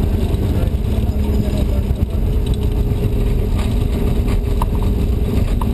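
A race car's engine running under load at steady revs, heard from inside the caged cockpit, over a heavy low rumble.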